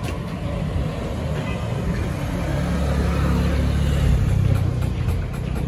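Low rumble of passing road traffic, swelling about three seconds in and easing off near the end.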